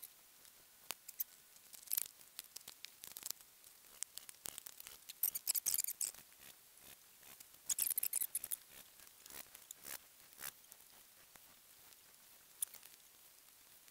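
Gloved hands scraping dry dirt and setting stones along the base of a log wall. Faint, scattered scrapes and clicks, with denser rustling scrapes about five seconds in and again near eight seconds.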